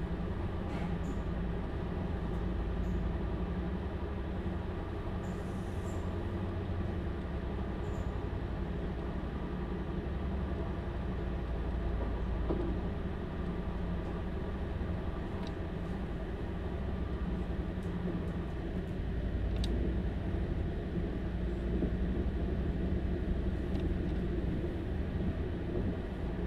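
Class 755 FLIRT bi-mode train heard from inside the carriage beside its power pack, with the diesel engines running steadily under way over a low rumble. About two-thirds of the way through, the engine note shifts and the running gets slightly louder.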